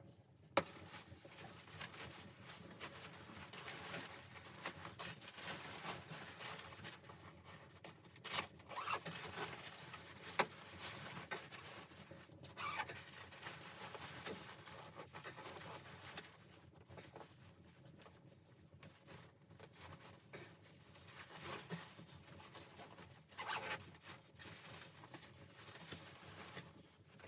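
Quiet rustling and handling noises with scattered sharp clicks and knocks, in a small room.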